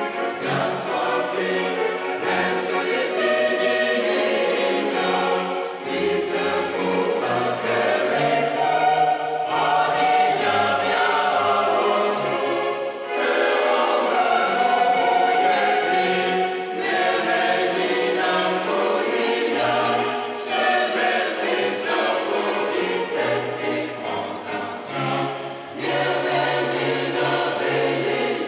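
Mixed church choir of men and women singing a Twi choral anthem in several-part harmony, the voice parts moving together in long sustained phrases.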